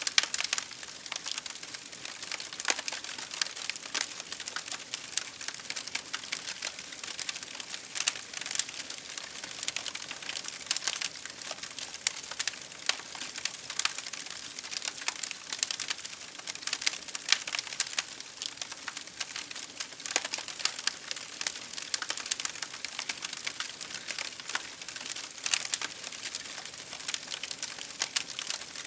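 Fire crackling: a dense, irregular run of small snaps that goes on without a lull.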